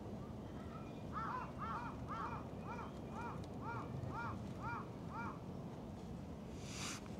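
A crow cawing: a run of about ten short arched caws, roughly two a second, that stops a little after the middle.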